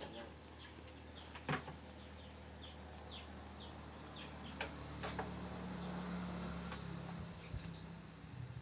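Ambient chirping: many short, falling chirps over a steady low hum, with two sharp clicks about a second and a half in and again about four and a half seconds in.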